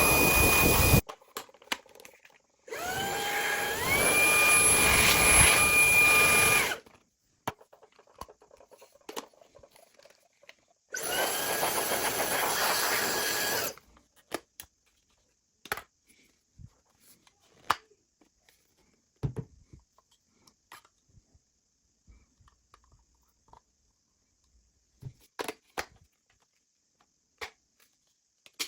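Fanttik Slim V8 mini cordless handheld vacuum running in three bursts, its motor whine jumping up in pitch in steps as it changes speed, each burst cut off abruptly. Scattered clicks and light knocks of handling follow in the second half.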